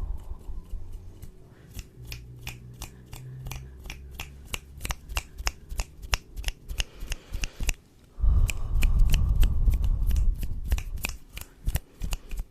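Close-miked ASMR trigger sounds: a rapid run of sharp clicks, several a second, with a burst of deep, muffled rumble right against the microphone about eight seconds in.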